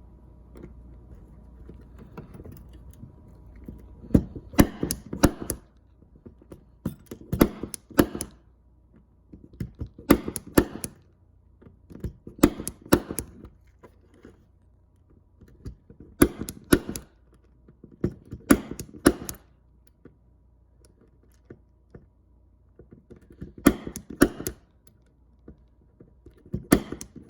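Punch-down tool pressing CAT6 conductors into a network jack's terminal slots and trimming them: eight bursts of sharp clicks and snaps, one per wire, a couple of seconds apart.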